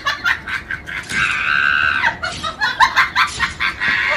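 A French bulldog and a bully-breed puppy squabbling: a rapid run of short, high yaps and snarls, with one drawn-out squeal about a second in, then more quick yapping.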